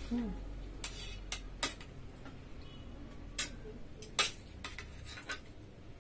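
Forks and a spoon clinking and scraping against china plates and a metal serving tray during a meal: scattered separate clinks, the loudest about four seconds in.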